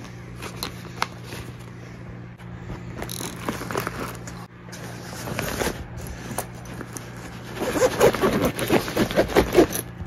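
A duffel bag and clothes being handled while packing: irregular rustling and scraping of fabric, with a louder run of quick rustles near the end.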